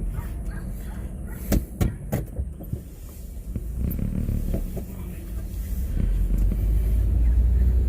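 Steady low rumble of a running motor vehicle, with three sharp clicks between about one and a half and two and a half seconds in. The rumble grows louder over the last two seconds.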